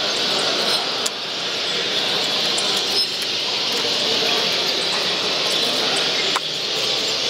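Steady, even din of a busy hall full of caged birds, with faint chirps in it and two small sharp knocks, one about a second in and one near the end.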